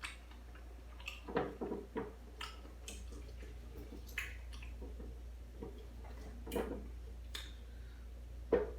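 A person chewing food close to the microphone, with wet mouth smacks and clicks at irregular intervals.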